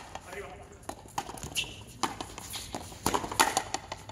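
A frontenis rally: a series of sharp, echoing strikes as the rubber ball is hit with stringed rackets and slams against the concrete front wall, several in quick succession.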